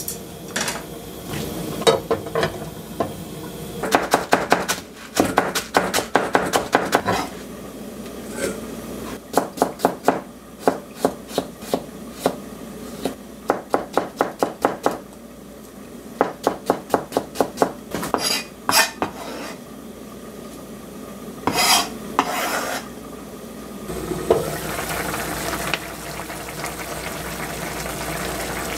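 Runs of quick, regular clicks as a utensil knocks against a dish while ingredients are stirred and mixed. Near the end a steady sizzling hiss of food cooking takes over.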